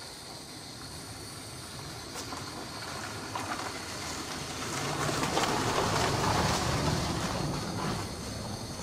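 Portable gas-cartridge stove burner hissing steadily under a pan of molten lead, growing louder for a few seconds past the middle, with a few light metal clinks as the pan is set back on the burner.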